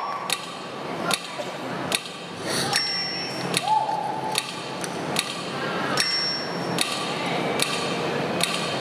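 A steady, clock-like beat of sharp ticks, one about every 0.8 s, over a murmuring crowd with a few whistles.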